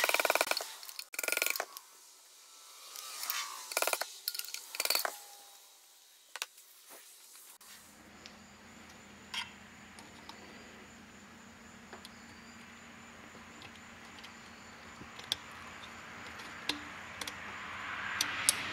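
Rubber mallet tapping a PVC pipe driver to seat a crankshaft oil seal in an aluminium scooter crankcase, in several quick rounds of knocks over the first five seconds. After that come scattered light metallic clicks of circlip pliers fitting a snap ring on the crankshaft, over a low steady hum.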